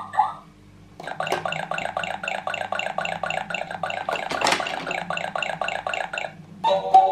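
Electronic sound effect from a battery-powered Mickey Mouse and Minnie Mouse toy playset: a rapid, even patter of about four or five pulses a second, starting about a second in and running for about five seconds. Just before the end, a short electronic tune starts as the playset's button is pressed.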